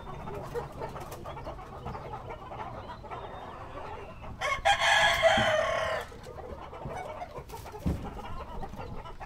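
Flock of chickens clucking, with a rooster crowing once about halfway through, a loud call lasting about a second and a half.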